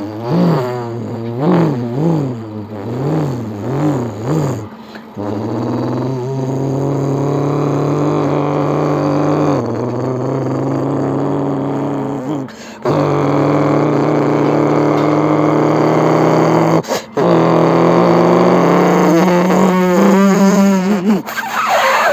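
Vocal mimicry of a race car: a run of quick rising-and-falling revs for the first five seconds or so, then long held engine drones broken by two short pauses, climbing in pitch near the end.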